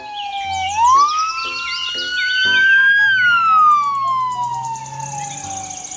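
Police car siren wailing. Its pitch falls, climbs for about two seconds from about a second in, then falls slowly again. Light background music plays underneath.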